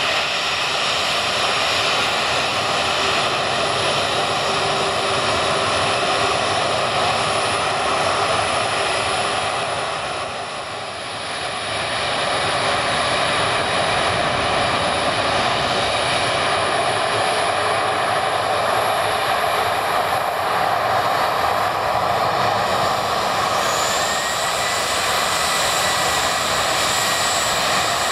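Jet airliner engines at takeoff power during a close-up departure: a loud, steady noise with several whining tones over it, dipping briefly once and with a faint rising high whine near the end.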